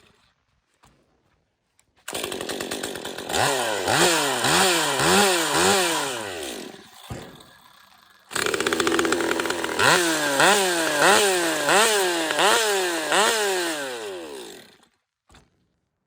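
Ported Stihl MS 201 TC top-handle two-stroke chainsaw starting about two seconds in and being revved in quick repeated blips, dropping back to a low idle, then revved hard again in a second run of blips before dying down near the end.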